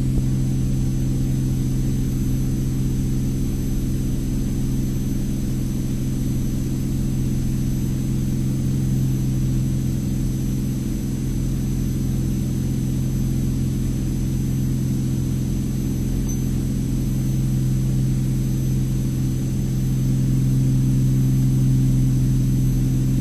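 Cirrus SR22T's turbocharged six-cylinder engine and propeller running at steady high power during takeoff and initial climb, heard from inside the cockpit as a steady low drone.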